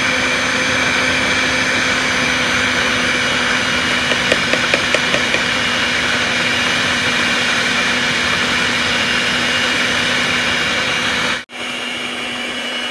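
Electric stand mixer running steadily, its beaters working thick squash cake batter. About four seconds in comes a quick run of about six clicks. Near the end the sound drops out for an instant and returns quieter.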